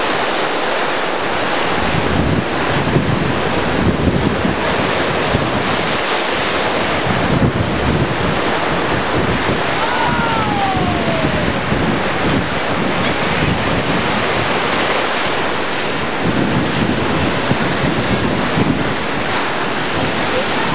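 Hurricane-driven heavy surf crashing and washing against rocky shore and beach, with strong gusty wind buffeting the microphone.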